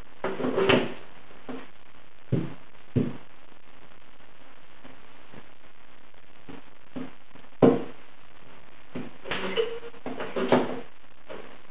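Sharp metal knocks with a short ring, a few spaced one to several seconds apart and then a quicker cluster near the end, from dent-pulling tools worked on studs welded to a dented steel car body panel.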